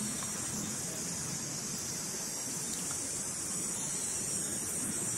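Steady, high-pitched drone of an insect chorus, such as cicadas, in the surrounding forest.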